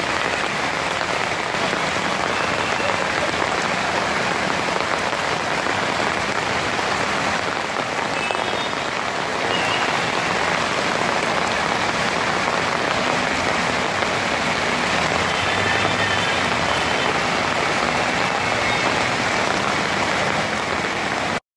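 Heavy rain falling steadily onto a waterlogged street, a dense even hiss that cuts off suddenly near the end.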